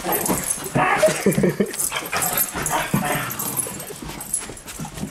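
A large dog giving a string of short, pitched cries during rough play with a man, fading off near the end.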